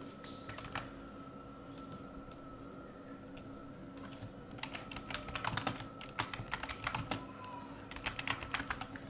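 Computer keyboard typing: a few scattered key presses at first, then a quick run of typing from about halfway through, over a faint steady hum.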